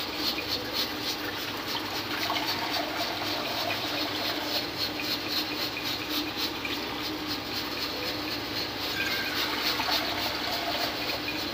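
Water being poured steadily into a large metal pot of frying tomato masala, a continuous splashing pour.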